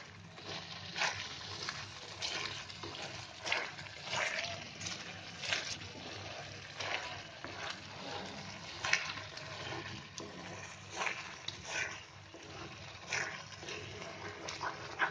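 Thick, cooked-down tomato sauce bubbling in an iron pan while a wooden spatula stirs and scrapes it, with irregular sharp scrapes and splutters about once a second.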